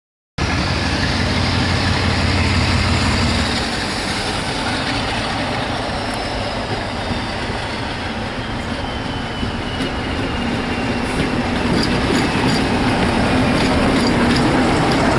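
Diesel locomotive passing close by with a passenger train, its engine running under power with a deep steady note at first, then a high whine that slowly falls in pitch as it goes by. Wheels clicking over the rails as the coaches pass near the end.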